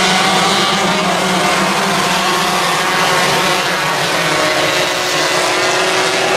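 Several 125-class micro sprint car engines running together in a pack on a dirt oval, their pitches drifting up and down as the cars work through the turns.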